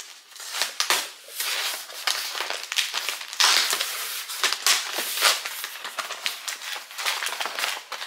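Corrugated cardboard shipping tube being handled and rubbed by hand: a continuous run of crackling, scratchy rustles with many small clicks, loudest about three and a half seconds in.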